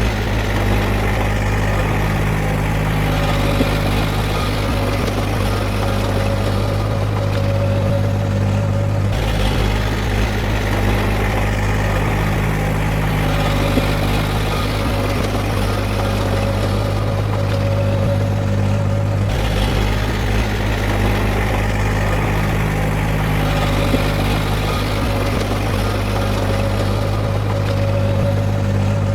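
Heavy diesel engine of earthmoving machinery running steadily, its tone changing abruptly about nine and nineteen seconds in.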